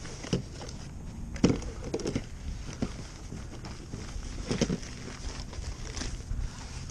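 Scattered knocks, clicks and clatter of fishing tackle being handled and sorted in a kayak, over a low steady rumble.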